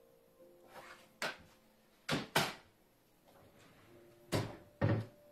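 A low kitchen cabinet being opened and shut: a run of sharp knocks and thumps, the loudest two close together about two seconds in and a heavier pair near the end.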